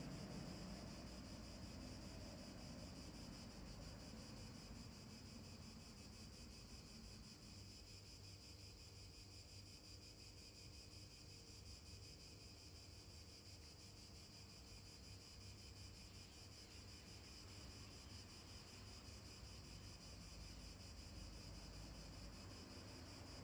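Near silence: faint outdoor room tone with a steady high-pitched hiss and a low rumble underneath.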